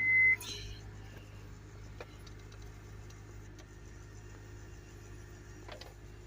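2004 Honda Accord engine idling steadily, running after starting on a newly replaced ignition switch. A car chime beeps once at the very start.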